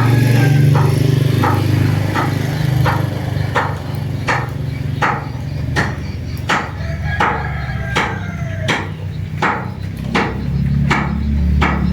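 Sharp knocks repeating evenly, about three every two seconds, like steady hammering. The knocks grow louder after the first few seconds. Under them runs a steady low rumble.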